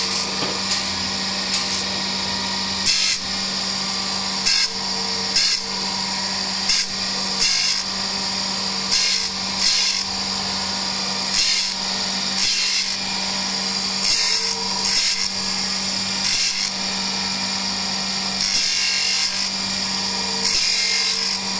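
Surface grinder running, its abrasive wheel grinding a metal ring on the magnetic chuck: a steady motor hum and whine, with a short burst of grinding noise every second or two as the wheel passes over the work.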